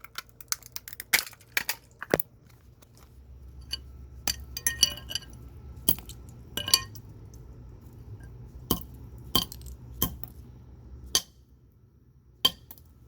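Repeated sharp blows with metallic clinks and clatter, about a dozen irregular strikes, as a small transformer from a dismantled electric alarm clock is smashed. The part holds up under the blows. A low hum runs underneath through the middle of the stretch.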